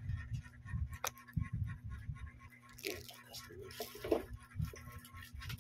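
Handling noise from a camera tripod being adjusted by hand: irregular knocks and bumps, a sharp click about a second in, and rustling around three to four seconds in.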